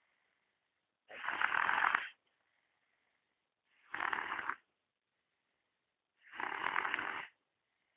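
A girl snoring in her sleep: three snores about two and a half seconds apart, each lasting about a second.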